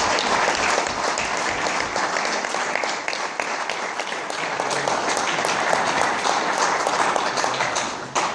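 Audience applauding: dense, sustained clapping that dies away near the end.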